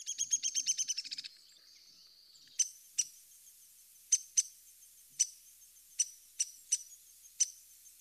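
Recorded downy woodpecker calls: a quick, rapid whinny of sharp, high notes that falls slightly in pitch for about a second, then nine single sharp 'pik' calls at uneven intervals.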